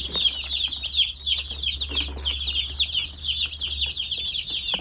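A brooder full of day-old broiler chicks peeping constantly: a dense chorus of high, overlapping chirps from many chicks at once.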